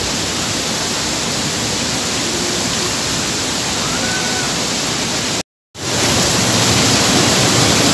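Waterfall rushing steadily. The sound cuts out completely for a moment about five and a half seconds in, then comes back a little louder.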